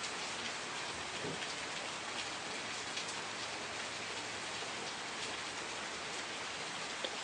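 Steady rainfall, an even hiss with scattered individual drops ticking, one sharper drop near the end.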